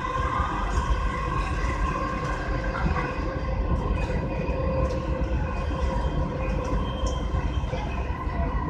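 Dubai Metro Red Line train running at speed, heard from inside the carriage: a steady low rumble with an even, unchanging whine of several tones over it and a few faint clicks.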